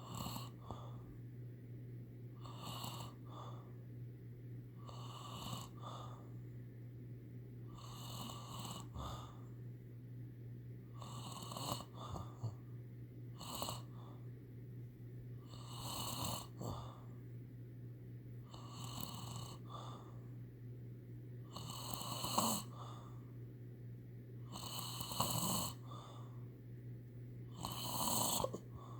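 Steady, regular snoring from a sleeper on a couch, one snore about every three seconds, over a faint continuous low hum.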